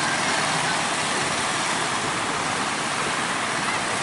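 Steady rush of breaking surf, with the engines of motorised outrigger fishing boats running underneath as they come in through the waves.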